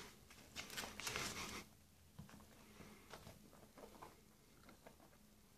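A cat batting a small ball about on fabric and a rug: a rustle of cloth lasting about a second near the start, then only faint scattered light taps and clicks.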